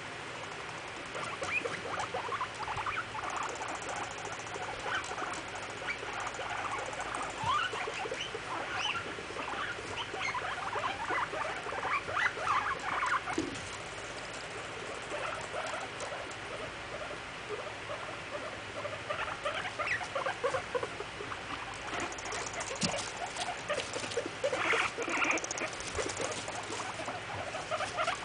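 Guinea pigs making short, irregular squeaks and chirps in clusters during a dominance squabble. The sounds are busy through the first half, thin out for a few seconds around the middle, then pick up again toward the end.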